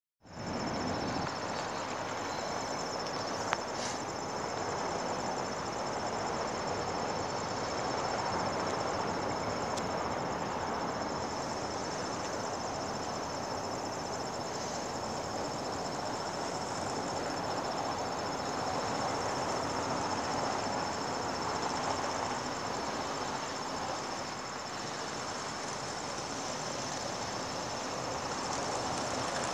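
Insects trilling steadily in the grass, a continuous high-pitched trill over an even wash of background noise. A single sharp click about three and a half seconds in.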